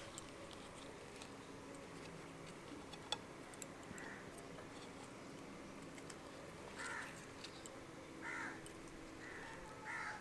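Quiet handling of banana-leaf parcels being opened: a sharp click about three seconds in and a few lighter ticks. A bird calls four short times, mostly in the second half.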